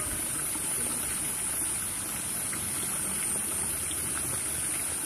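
Steady rushing outdoor background noise with a continuous high-pitched insect drone above it.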